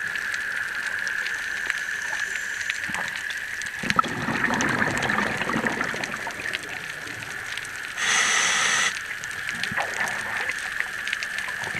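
Underwater sound with a steady high hum and scattered crackling clicks. About four seconds in comes a gurgling gush of bubbles lasting a couple of seconds, and near the eight-second mark there is a short, loud, buzzing hiss.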